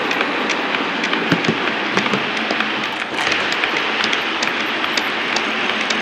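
H0 scale model freight wagons rolling past on model track: a steady rolling rattle with frequent sharp clicks from the metal wheels on the rails.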